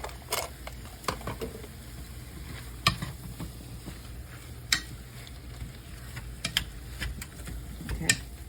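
A utensil stirring mashed potatoes in a bowl, with about six sharp knocks and clicks against the bowl spread over a low steady hum.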